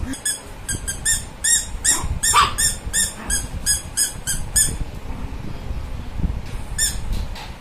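Rubber squeaky toy squeezed over and over, a quick run of short, same-pitched squeaks about three or four a second, then a pause and one more squeak near the end.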